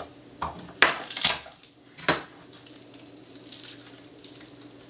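Kitchen utensils and cookware being handled and set down on a counter: about four sharp clinks and knocks in the first two seconds, then quiet handling.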